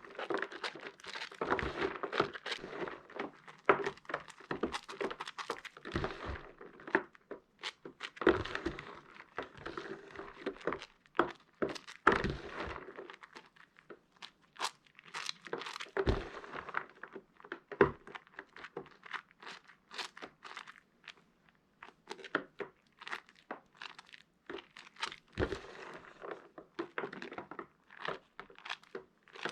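Pieces of laundry soap being crushed and broken by hand, crackling and crunching in irregular clusters of sharp snaps, with a brief lull about halfway through.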